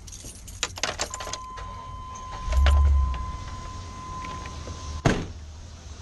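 Keys jangling at the ignition, and a steady warning chime starting about a second in. At about two and a half seconds the van's engine cranks briefly and starts, then settles into a low idle. Near the end there is one sharp knock, and the chime stops at the same moment.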